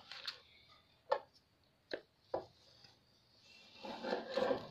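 Handling noise from a bench grinder's metal housing being turned over on a table: a few light, separate knocks, then a stretch of rustling and scraping near the end.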